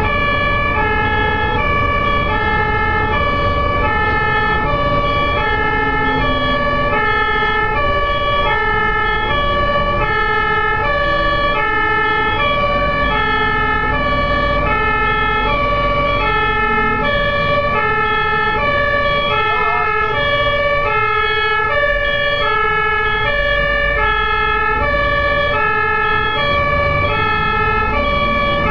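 Ambulance siren sounding a steady two-tone hi-lo pattern, its pitch switching about every two-thirds of a second, over the low rumble of engine and road noise.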